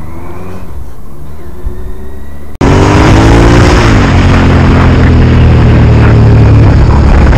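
Motorcycle engine running at low speed, fairly quiet. Then an abrupt cut to a much louder ride on another motorcycle, heavy wind noise on the microphone, the engine's pitch climbing and then dropping about a second in.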